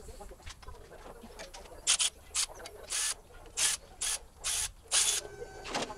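Ratchet wrench loosening the bolts on a Jeep JK's Dana 44 front differential cover: about seven short bursts of ratchet clicking, starting about two seconds in. A faint steady hum starts near the end.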